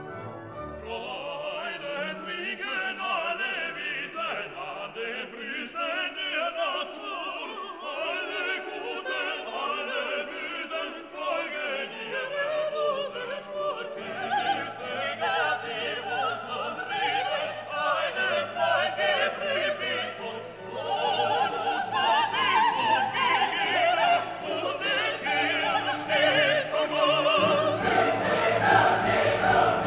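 Background music: a classical piece with operatic singing over an orchestra, growing louder and fuller in the second half.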